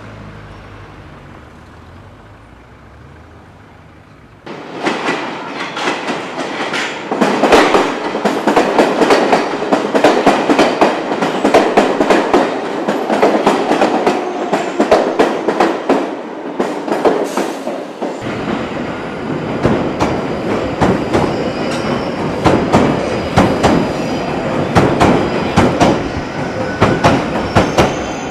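London Underground train running: a dense, rapid clatter of wheels over the rails, with a heavier rumble underneath later on. It cuts in abruptly about four seconds in, after a low, quiet hum.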